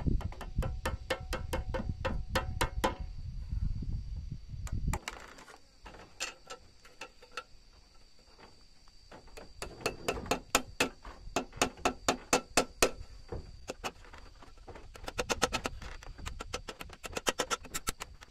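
Small hammer tapping thin nails into the wooden strips that hold glass panes in a wooden door. It goes in quick runs of light taps, about five a second, with short pauses between the runs.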